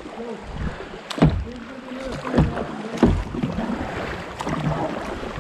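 Kayak running fast floodwater: rushing, splashing water with three sharp knocks, the first about a second in and the others close together a second or two later.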